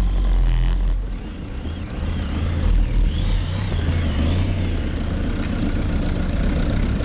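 Motorcycle engine running as the bike rides along, with a steady low rumble throughout.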